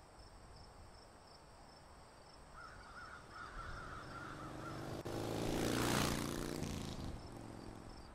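Faint outdoor ambience with birds calling, then a rushing sound with a low hum under it that swells to a peak about six seconds in and fades away.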